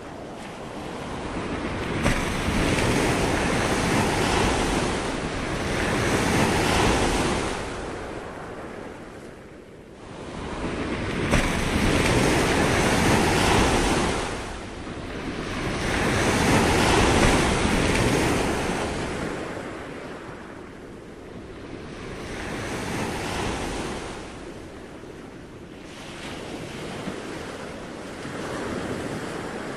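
Ocean surf: waves washing in and drawing back, the noise swelling and falling away every few seconds.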